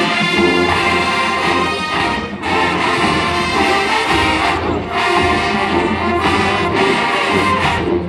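College marching band playing its halftime show: full brass chords held in long phrases, with short breaks between them.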